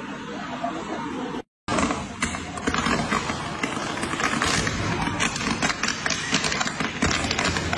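Electrical fire in ceiling wiring, crackling irregularly over a steady rushing noise. The sound cuts out completely for a moment about one and a half seconds in, then the crackling grows denser.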